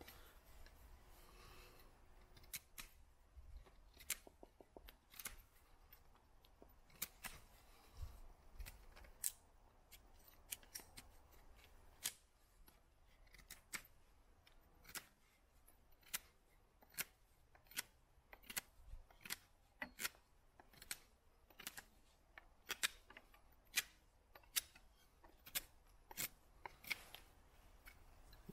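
Joker Nessmuk bushcraft knife whittling a point on a wooden stick: a long series of short, crisp cutting strokes, irregularly spaced and coming closer together from about halfway through.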